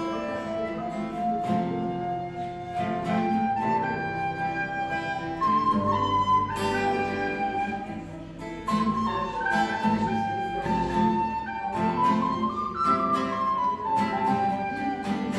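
Instrumental music: a flute-like melody over plucked strings and a steady bass, with notes held and moving stepwise.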